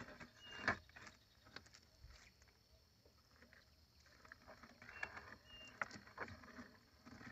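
Mesh fishing net being hauled by hand over the side of a wooden canoe: faint splashing and dripping of water off the net, with scattered knocks of the net and hands against the hull, the loudest under a second in.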